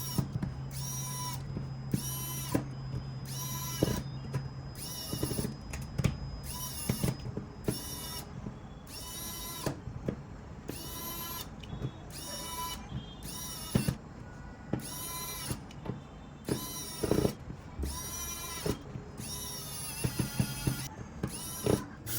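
A small electric motor whirring in repeated short bursts, each rising and falling in pitch, somewhat under two a second, with a steady low hum under the first few seconds.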